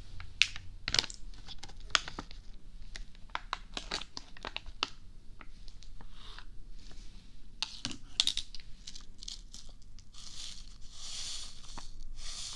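Crinkling and tearing of a paper tissue packet handled right at a binaural ASMR microphone. Sharp crackles come thick for the first five seconds, then give way to softer rustling swishes.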